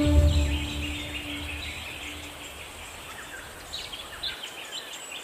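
Soft background music fades out over the first two seconds, leaving an outdoor ambience of birds chirping, with a few short chirps standing out near the end.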